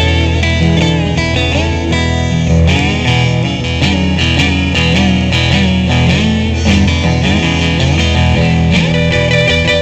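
Live blues-folk band playing: a harmonica solo over acoustic guitar and electric guitar, with notes bending and sliding in pitch.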